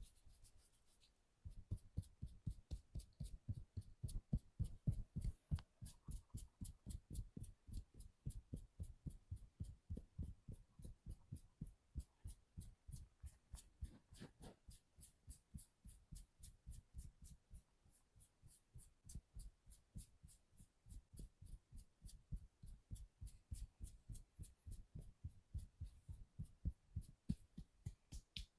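Hands striking the body in quick rhythmic percussive massage strokes: soft thuds at about three to four a second, each with a light slap on top, starting about a second and a half in after a brief rubbing sound.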